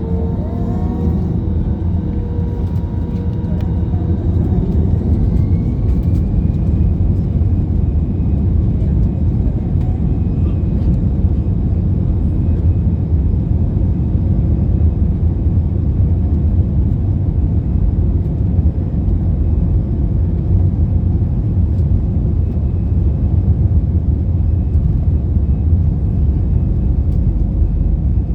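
Airbus A320 jet engines heard inside the cabin, a loud steady rumble that grows louder about four seconds in, with a thin whine that rises and then holds steady as the engines spool up.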